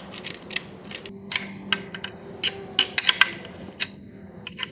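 Irregular sharp metallic clicks and taps of a hand tool working the headlight mounting screws on an e-bike as they are tightened.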